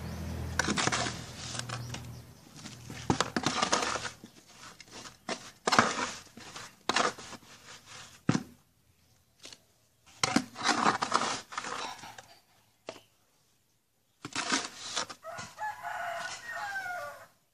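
Hands scooping and pressing damp potting soil in plastic nursery pots: a series of short rustling, scraping bursts with pauses between them. Near the end a rooster crows for about two seconds in the background.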